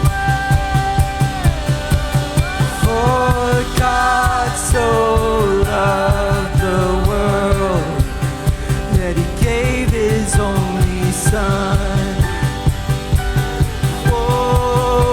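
Live worship band music: drums keep a steady beat under bass and guitar, while a voice sings long melodic phrases that slide up and down in pitch, without clear words.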